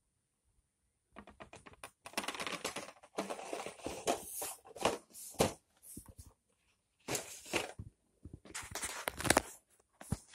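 Rustling, crackling handling noise close to the microphone as a cardboard model kit box and the bedding are moved about. It comes in irregular bursts with short pauses, starting about a second in.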